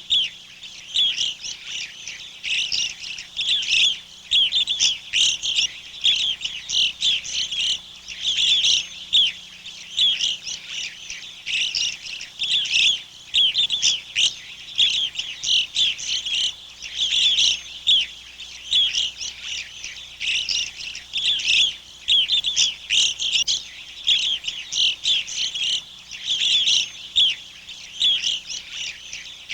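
Backyard birds chirping: many short, high calls overlapping without a break.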